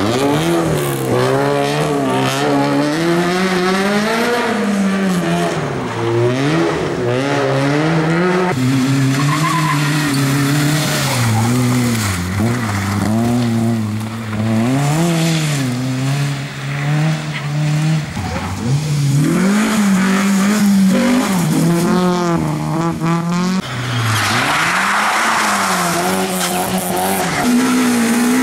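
Rally car engines driven hard through corners, one car after another: the engine note climbs and falls again and again with throttle lifts and gear changes. Near the end there is a burst of tyre and skid noise.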